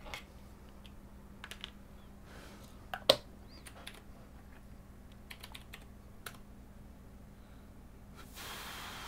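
Sparse clicks and taps of keys and small parts being handled, with one sharper click about three seconds in. A soft hiss comes in near the end.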